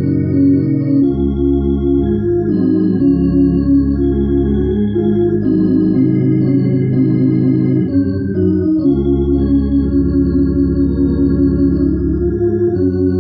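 Hammond organ playing a hymn: sustained chords over long held bass notes, the harmony moving every second or two.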